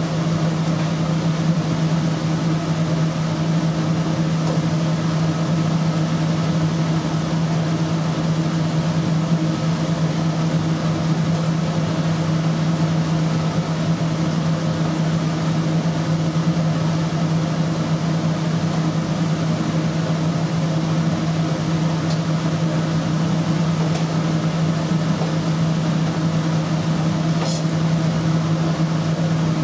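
Kitchen ventilation fan running with a steady low hum and an even hiss, unchanging throughout.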